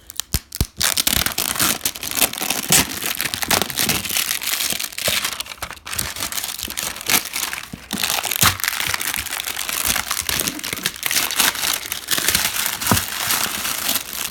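Plastic shrink wrap being pulled off a cardboard box, crinkling and crackling continuously, with a few sharp clicks in the first second.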